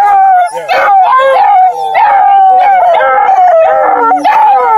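Several bluetick beagle cross puppies howling together, their long, wavering cries overlapping without a break.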